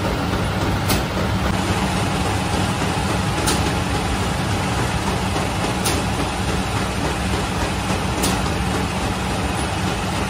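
Automatic flatbread-baking machine running with a steady mechanical hum, and a sharp click about every two and a half seconds as it works through its cycle.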